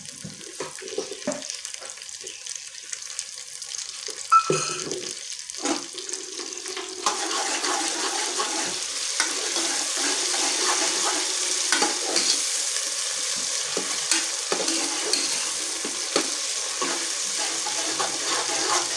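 Sliced onions with ginger-garlic paste sizzling in hot ghee in an aluminium pot, a steel ladle stirring and scraping against the pot's sides. A sharp knock comes about four seconds in. The sizzle swells about seven seconds in and stays strong, with frequent clicks from the ladle.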